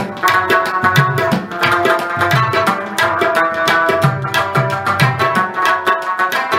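Background music with fast hand-drum strokes under a sustained melody; the low drum notes bend in pitch.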